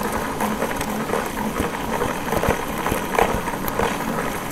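Rebuilt scooter gearbox turning as the rear wheel is spun, with a steady rustle and scattered light clicks. The gearbox, damaged by water in its gears and bearings, has been repaired and refilled with oil; the mechanic calls the complaint fixed.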